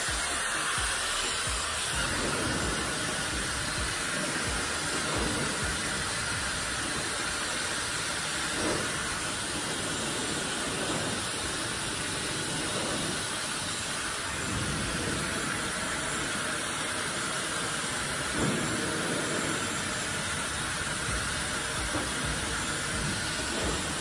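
Dyson Supersonic hair dryer running steadily, its airflow a continuous rushing hiss that shifts slightly now and then as it is moved over the hair.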